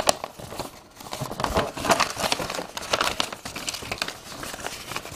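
Sheets of paper rustling and crinkling in irregular crackles as a large folded user manual is handled and a second paper manual is pulled out.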